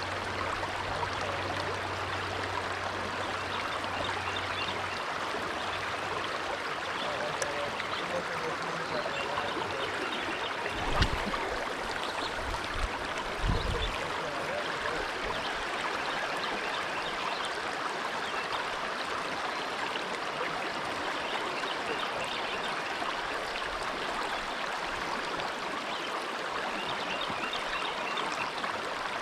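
Creek current rushing steadily over a rocky bed. There are a few dull low bumps about midway through.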